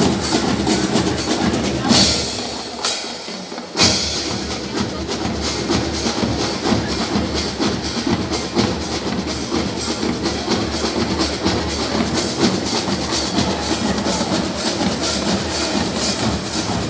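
Marching band playing a fast, driving rhythm with heavy percussion. About three seconds in the bass drops out briefly, then the full band comes back in on a sharp hit.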